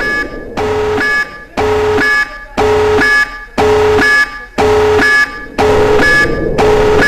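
Nuclear alert alarm sounding in repeated blasts about once a second, each blast a held note of several tones together.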